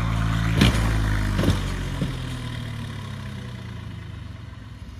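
Diesel stunt tractor's engine running steadily as the tractor rears up on its rear wheels, with three sharp clunks in the first two seconds; the engine sound then slowly fades.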